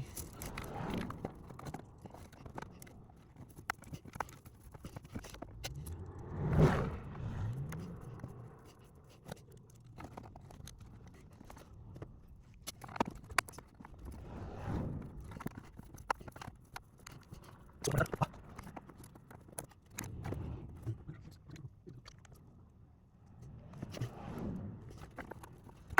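Scattered scrapes and clicks of a screwdriver and plastic trim being worked in the cramped space under a car dashboard, loosening the screws of an HVAC blend door actuator. The loudest knock comes a bit over six seconds in.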